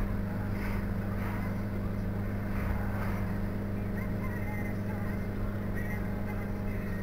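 Car engine and road noise heard from inside the cabin: a steady low drone while driving.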